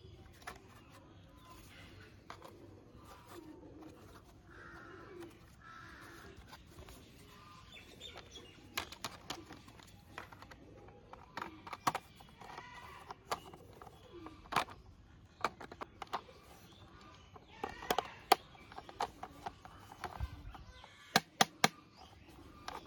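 Hard plastic toy parts clicking and tapping as wheels are pressed onto a plastic toy bus body: scattered sharp clicks, with a quick cluster of them near the end. Birds call faintly in the background.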